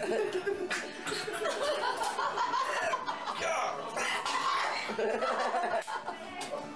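A man coughing and gagging over a sink after downing a shot of Jägermeister, while others laugh.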